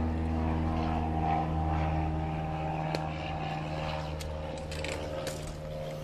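A motor or engine running steadily with an even, low hum that slowly fades, with a few small clicks over it.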